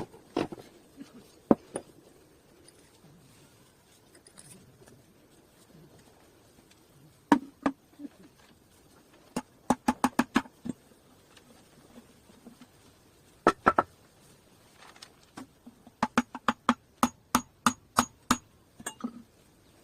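Hammer tapping on the metal parts of a fan motor while its bushing and shaft are knocked out or driven in: sharp strikes in short groups, with a run of about four even blows a second near the end that leave a faint ring.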